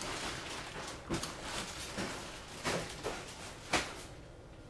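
Hands handling a small FPV quadcopter's carbon-fibre frame and wiring on a silicone work mat: rustling with about four light clicks and knocks, the loudest near the end.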